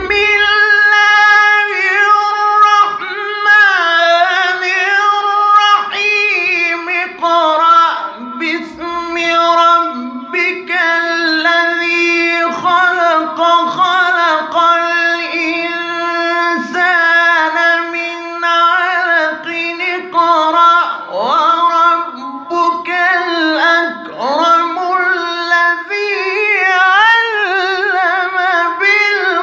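A qari's solo male voice in melodic Quran recitation, holding long ornamented notes in a high register with sweeping slides up and down between them.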